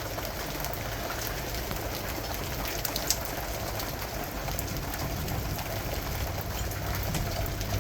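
Steady rain, with many single drops ticking close by and one louder drop striking about three seconds in.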